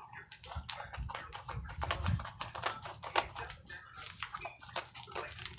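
A package being opened and handled: a quick, irregular run of clicks and crackles.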